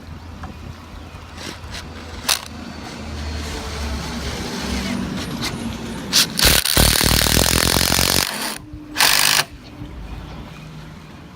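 Cordless impact driver sinking a screw into a wooden deck railing: a few clicks and knocks, then about two seconds of loud, rapid hammering rattle as the screw drives home, and a shorter burst about half a second later.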